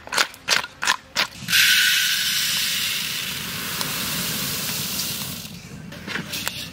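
A knife scraping scales off a large katla fish in quick strokes, then dry yellow grains pouring into a large metal wok with a hissing rush that starts suddenly about a second and a half in and fades over a few seconds. Near the end a metal spatula scrapes lightly in the wok.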